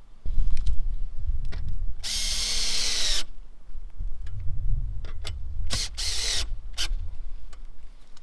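Cordless drill/driver run in short bursts at an antenna mount bracket on a wooden post: one run of about a second that winds down in pitch as it stops, then two short bursts a little later. A low rumble sits underneath throughout.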